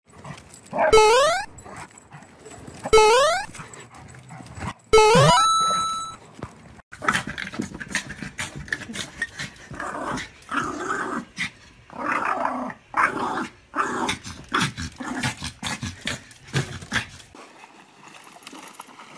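Dog vocalising excitedly: three loud yelps, each rising in pitch, about two seconds apart, followed by a longer stretch of quieter, choppy dog noises and clicks.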